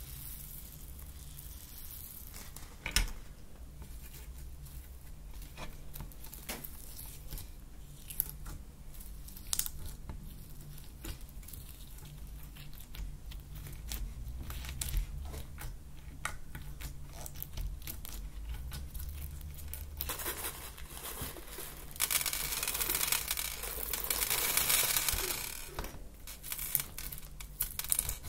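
Small plastic bags of sprinkles and foam beads crinkling as they are handled and poured, with scattered sharp clicks of beads landing on a hard glossy tabletop. A longer, louder stretch of crinkling and rustling comes about three-quarters of the way through.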